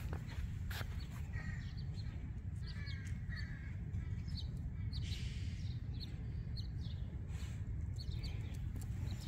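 A few short bird calls outdoors, about a second and a half in and again around three seconds, over a steady low rumble and scattered light clicks.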